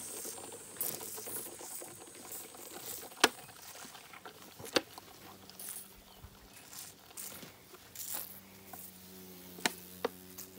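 Elephant calf sucking milk from a plastic bottle, with four sharp clicks standing out. Crickets chirp briefly at the start.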